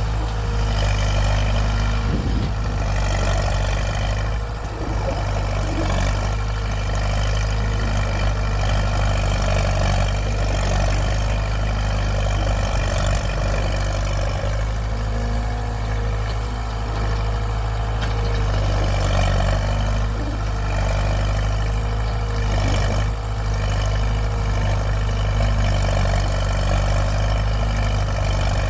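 Heavy engine of cane-lifting machinery running steadily at a constant speed, with a strong low drone.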